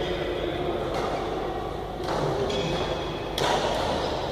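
Badminton rackets hitting a shuttlecock in a doubles rally: a faint hit about a second in and a sharper, louder hit a little before the end, over steady background noise.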